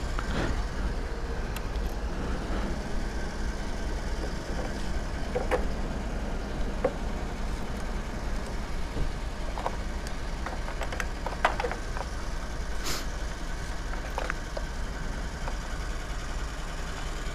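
Small metallic clicks and knocks as a key unlocks and opens a motorcycle's fuel filler cap, over a steady low rumble.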